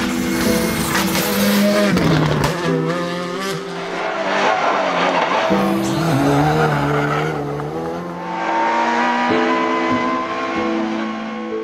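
Škoda Fabia rally car driven flat out on a stage. The engine revs hard and its pitch rises and falls through the gear changes, with background music underneath.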